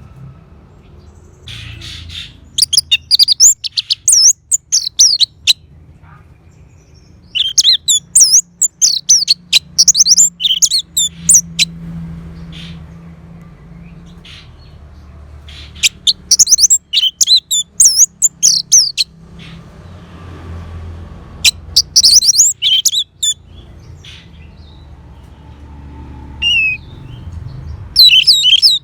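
Orange-headed thrush singing: about five bursts of rapid, varied high-pitched notes, each a few seconds long, with pauses between them.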